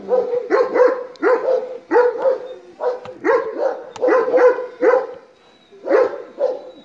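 Kangal shepherd dog barking hard and repeatedly at a drone hovering overhead, about two or three barks a second with a short pause near the end: an aggressive reaction to the drone.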